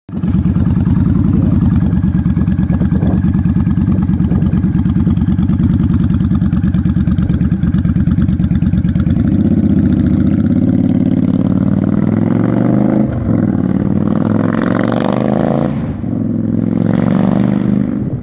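2011 Yamaha Stryker's V-twin engine running loud through a Vance & Hines Twin Slash exhaust. It idles steadily for about nine seconds, then rises in pitch as the bike pulls away and accelerates, with the pitch dropping briefly at two gear changes.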